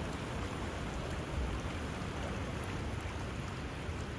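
Steady rushing noise with an unsteady low rumble underneath, no distinct strokes or tones.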